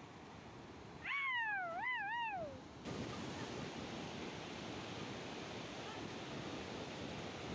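A goat bleats once about a second in, a wavering call that falls in pitch, over the rush of a river; from about three seconds on only the steady rushing of the river is heard.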